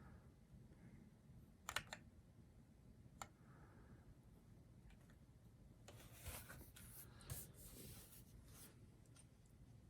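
Faint, sparse clicks from a GamaKay K61 mechanical keyboard with Gateron switches: a couple of sharp clicks, a single one, then a busier run of clicks with rustling handling noise over about three seconds.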